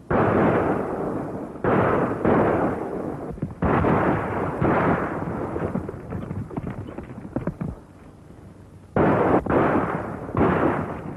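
Gunfire on an old film soundtrack: about seven loud shots, each ringing out and dying away over a second or so, with a quieter rapid crackle between about five and eight seconds in.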